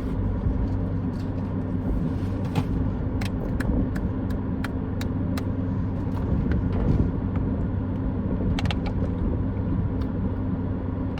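Steady low hum of a car cabin with the engine idling, with scattered small clicks over it.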